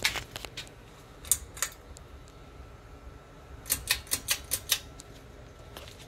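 Harbor Breeze Merrimack II ceiling fan running with a faint steady hum, under sharp light clicks: a few scattered ones, then a quick run of about six a little past halfway.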